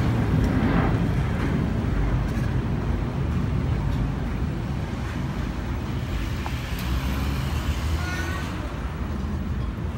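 Low, steady jet rumble from a departing Boeing 737 as it climbs away, slowly fading. A short high chirp comes in about eight seconds in.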